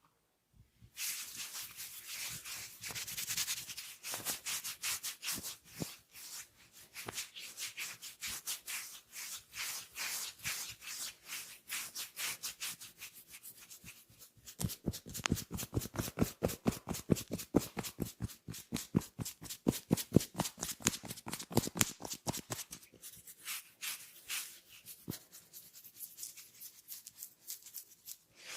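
Hands massaging oiled skin: quick rhythmic rubbing and slapping strokes. The strokes get heavier and fuller from about halfway through, then lighten again.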